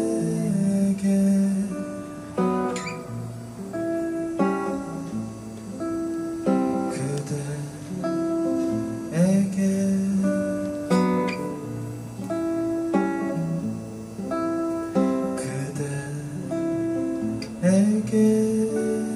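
Live acoustic guitar song: a man sings a slow melody while strumming and picking an acoustic guitar.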